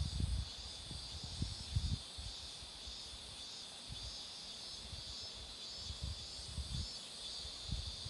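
Cicadas droning steadily in a high-pitched chorus, with irregular low rumbles on the microphone, loudest near the start and about two seconds in.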